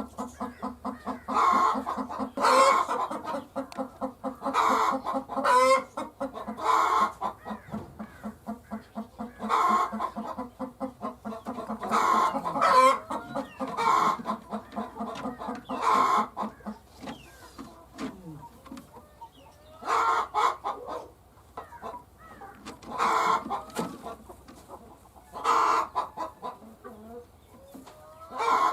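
Hen clucking: rapid runs of clucks broken by loud calls every second or two. After about 17 s the clucking thins out, leaving a loud call every few seconds.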